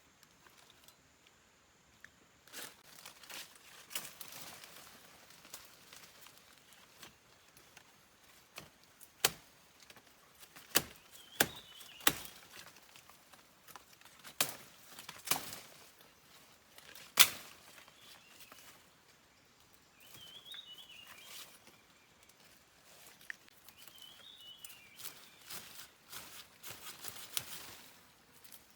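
Rustling and handling noises with several sharp knocks, the loudest about 17 seconds in. A bird gives a short warbling call three times.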